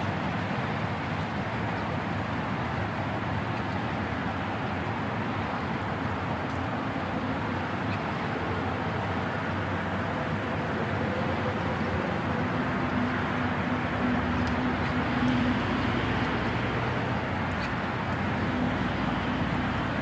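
Diesel engines of heavy construction machinery (excavators and dump trucks) running steadily as an excavator loads gravel, the engine note strengthening somewhat about two-thirds of the way through.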